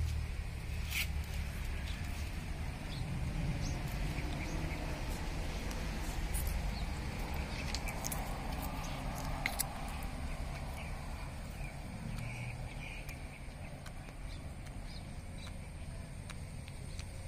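Outdoor ambience: a steady low rumble with scattered small clicks and rustles, over a faint steady high tone.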